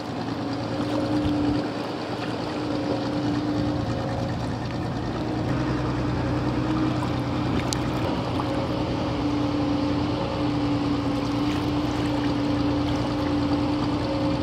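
A motor engine drones steadily in the background over a broad hiss, with a deeper hum joining about five seconds in.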